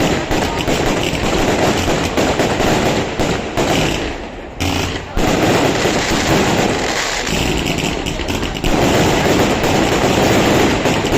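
Fireworks going off in rapid, almost continuous crackling volleys of sharp bangs, dropping away briefly about four seconds in, then growing louder again.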